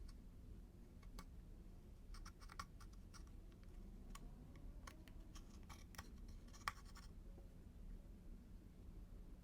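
Faint, scattered sticky clicks and crackles of slime being worked by hand as makeup is mixed into it, with one sharper click about two-thirds of the way through.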